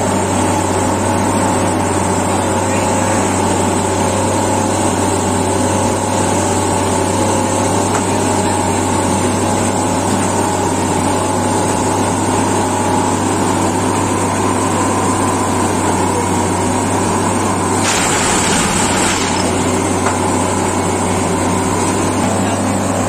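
Railway track tamping machine's engine running steadily while parked, a deep hum with a steady whine over it. About eighteen seconds in, a short hiss lasts about a second.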